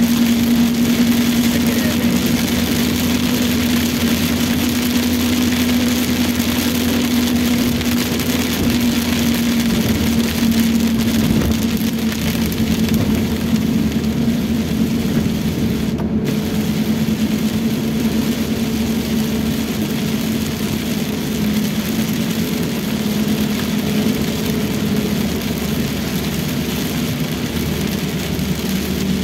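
Steady in-cabin road noise of a Toyota Rush driving in heavy rain: a low engine hum under an even hiss of rain and tyres on the wet road.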